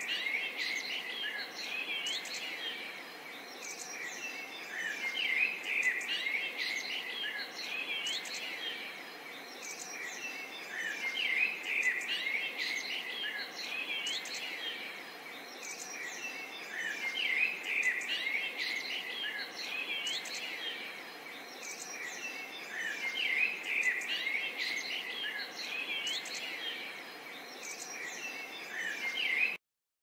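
Many small songbirds chirping and twittering together over a steady background hiss, the chorus swelling about every six seconds.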